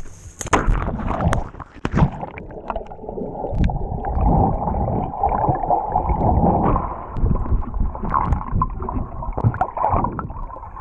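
A waterproof camera held underwater: a few sharp knocks in the first two seconds, then muffled, irregular rumbling and gurgling of water against the housing, with little above the low and middle range.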